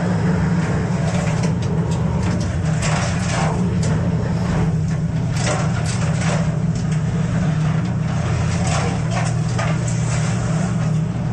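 A crab boat's engine running with a steady low drone, overlaid by repeated sharp knocks and clatter as king crab are handled and tossed about on a metal sorting table.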